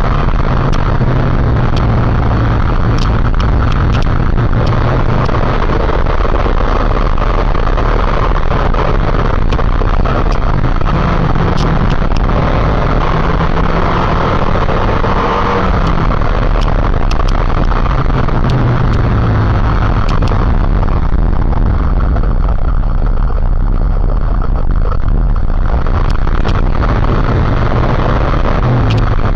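Motorcycle engine running while riding, its pitch rising and falling a few times, under heavy steady wind noise on the microphone.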